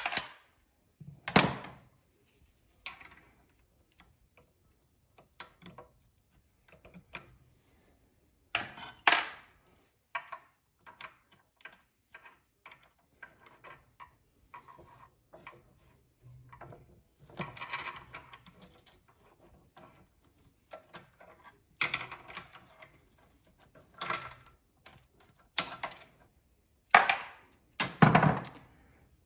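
Intermittent clanks, knocks and short rattles of tools and metal parts being handled, with brief silences between them.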